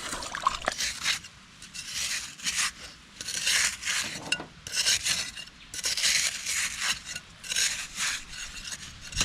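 Shovel scraping and digging wet silt out of a muddy drain, in repeated strokes about once a second.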